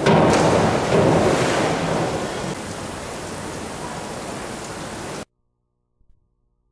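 Echoing noise of an indoor pool hall: a loud rush in the first second or two, then a steady hiss that cuts off suddenly about five seconds in.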